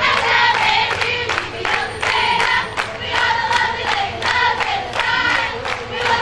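A group of young women singing together in unison, clapping along in a steady beat.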